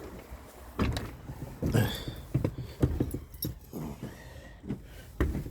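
Irregular clicks, knocks and light rattles from handling, with a few brief pitched sounds in between.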